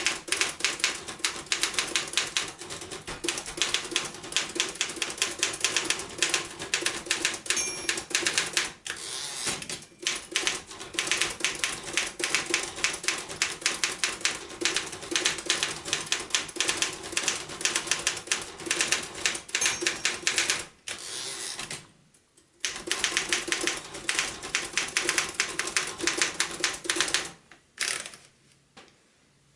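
1939 Royal KMM manual typewriter being typed on: a rapid run of key strikes, broken by two short pauses, that stops near the end.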